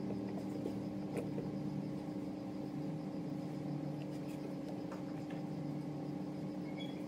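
A steady mechanical hum made of several held tones, with a few light clicks and knocks scattered through it.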